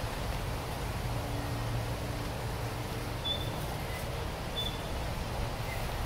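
Steady low outdoor rumble with faint rustling of potato plants being pulled and handled. Two short high chirps come about a second apart midway through.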